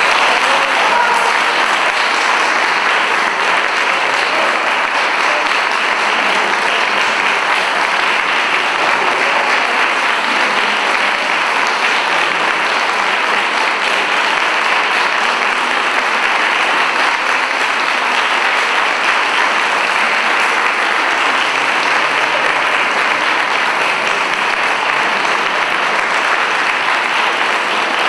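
Audience applauding: many hands clapping in a steady, unbroken wash.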